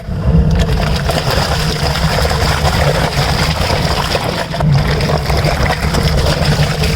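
Vision twin-tub washing machine's wash tub running a heavy wash: clothes churning and sloshing in soapy water over a steady low motor hum. It cuts in suddenly at the start, as if heard up close with the lid open.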